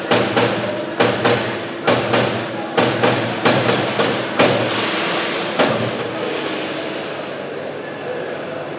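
CNC punch press punching sheet metal: sharp repeated strikes, about two to three a second, over a steady machine hum. The strikes stop about five and a half seconds in, leaving the hum running.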